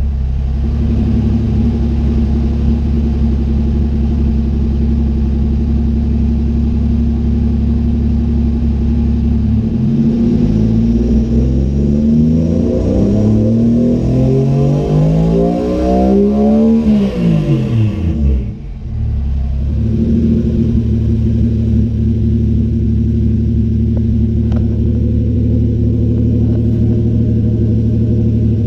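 Turbocharged Toyota 1JZ VVTi inline-six, swapped into a Nissan 240SX, heard from inside the cabin. It runs steadily, then climbs in revs for about seven seconds, drops back quickly and settles to a steady idle.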